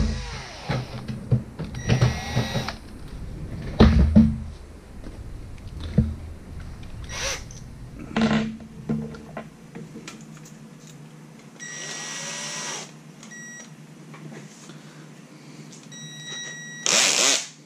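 Cordless drill/driver whirring in short bursts as it backs screws out of a toaster oven's sheet-metal case, with knocks and clatter of handling the metal between runs.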